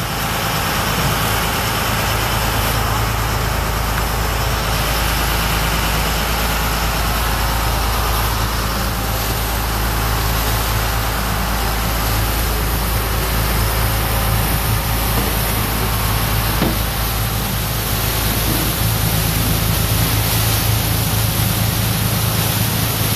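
Fishing boat's engine droning steadily while under way, with a constant rush of wind and water.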